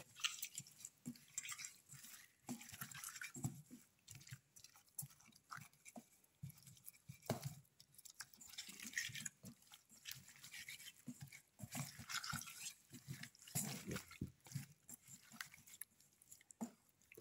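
Hands squishing raw red snapper pieces through a thick spice-paste marinade in a steel bowl: faint, irregular wet squelches and clicks.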